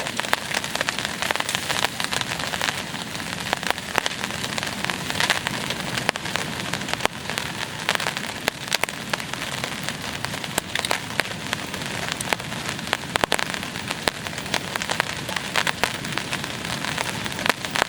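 Steady rain falling, with many sharp, irregular drop hits on a nearby surface.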